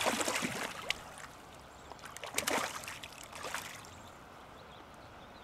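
Hooked smallmouth bass thrashing and splashing in shallow water as it is landed by hand: a burst of splashing at the start and another about two and a half seconds in.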